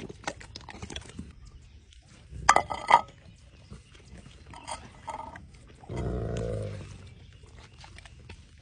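Dogs eating raw meat: wet chewing, licking and smacking clicks throughout, with two loud sharp sounds about two and a half seconds in and a low grunt from one of the dogs lasting under a second, around six seconds in.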